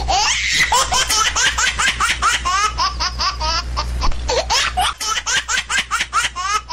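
High-pitched laughter: a long, fast run of short laughs, several a second, that keeps going throughout.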